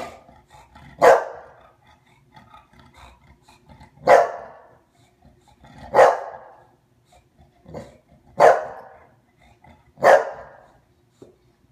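Bulldog barking: five loud single barks, spaced about two seconds apart, with a few softer ones between.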